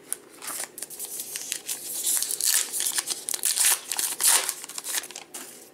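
Trading-card pack wrapper being torn open and crinkled in the hands: a dense, crackly rustle that fades near the end.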